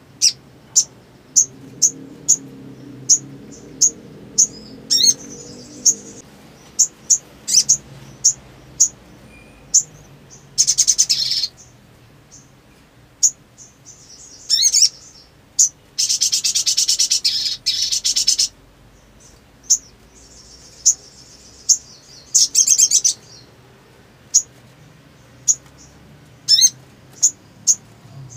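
Little spiderhunter (sogon) calling: short, sharp, high chirps about once a second, broken by fast rattling trills, the longest lasting about two and a half seconds.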